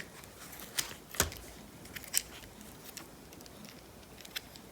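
Handling noise from unboxing a microphone: scattered light clicks and taps of the item and its packaging, with one sharper knock about a second in.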